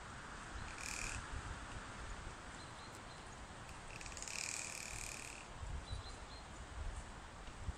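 An animal call twice: a short one about a second in and a longer, rough one about four seconds in, over a steady low rumble.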